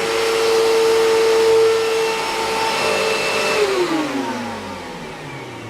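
Vacuum cleaner running steadily, then switched off about three and a half seconds in, its motor whine falling in pitch as it spins down.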